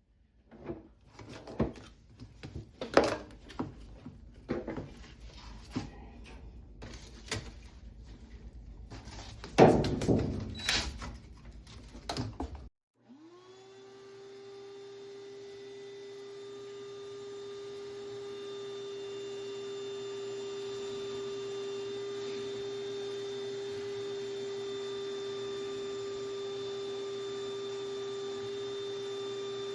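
Irregular knocks and thunks of handling, the loudest about ten seconds in. They stop abruptly, and then a motor starts up and runs with a steady, constant-pitched whine that swells for a few seconds and then holds level.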